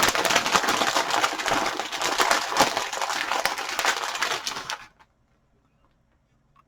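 A plastic bag of shredded mozzarella crinkling and crackling as it is handled and cheese is shaken out, stopping abruptly about five seconds in.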